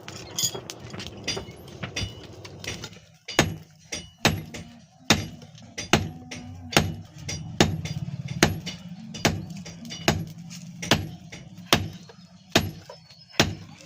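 Blacksmith's hand hammer striking iron on an anvil while forging a billhook blade: a few lighter taps, then from about three seconds in a steady rhythm of heavy ringing blows, a little under one a second.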